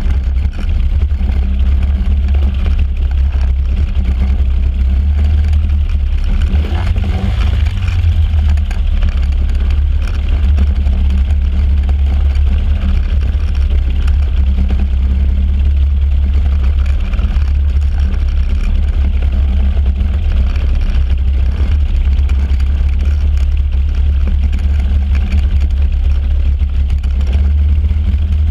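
Microlight trike's engine and pusher propeller running at taxi power, a steady low drone. The engine is running rough and missing, which the owner says it does at everything but full throttle.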